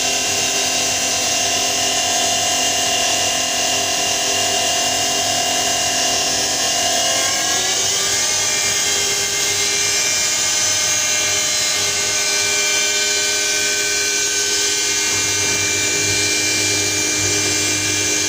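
An electric motor whining steadily, its pitch shifting a little about seven seconds in.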